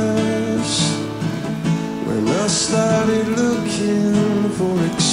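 A slow acoustic cover song: strummed acoustic guitar, with a soft sung line near the middle.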